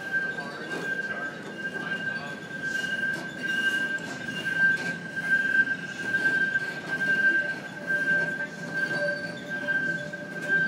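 Streetcar's steel wheels squealing on the rails in a steady high tone, over the rumble of the car running through the underground loop; a second, lower squeal joins near the end.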